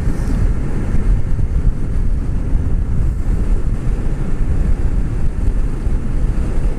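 Steady rumble of wind over a helmet-mounted microphone on a motorcycle cruising at speed, mixed with the bike's engine and road noise.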